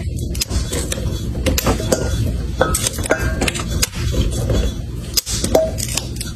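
Green beans clicking and rustling against a stainless steel mixing bowl as a capuchin monkey rummages through them, with irregular sharp taps and clinks over a steady low rumble.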